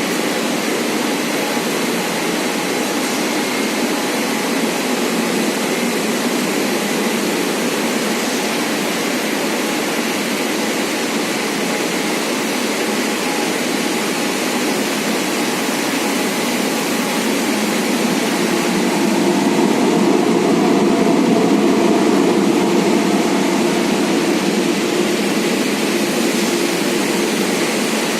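Rubber extrusion and microwave curing production line running: a steady machinery noise that grows somewhat louder for several seconds past the middle, with faint steady tones in it, before easing back.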